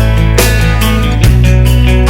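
Background music: rock with guitar, loud and steady, with chord changes about every second and a half.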